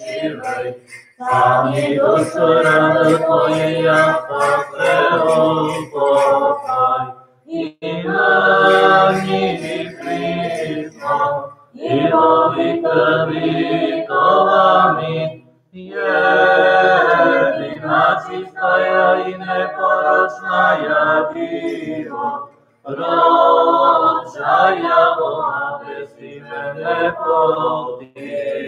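Unaccompanied liturgical chant of a Byzantine-rite memorial service (panachida), sung in phrases broken by short pauses.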